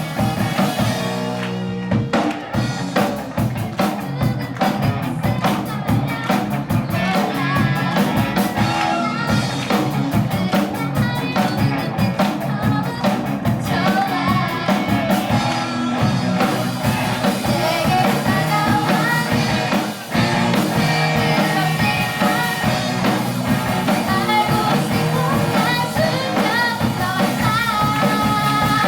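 Student rock band playing live: singing over drum kit, electric guitar and bass.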